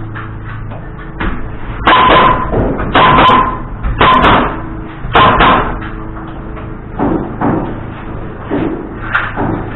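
Hammer blows on framing lumber: four loud strikes about a second apart, each with a short ring, then several lighter taps, over a steady low hum.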